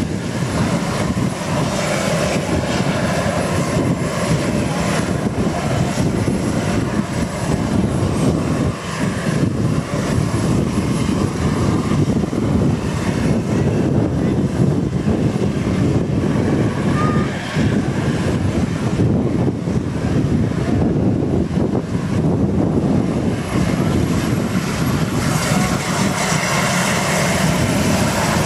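Turbine engines of an RAF Sea King search-and-rescue helicopter running on the ground during start-up, with a steady high whine over a dense rushing noise. The main rotor blades begin to turn about halfway through.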